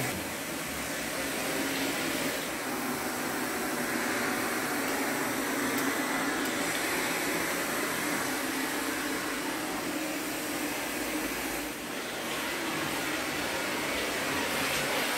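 Vacuum cleaner running steadily: an even whooshing hiss over a constant hum, dipping briefly about twelve seconds in.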